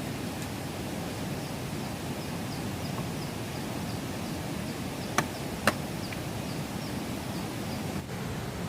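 Steady outdoor background noise with a short, high chirp repeating about three times a second. Two sharp knocks, half a second apart, sound a little past five seconds in.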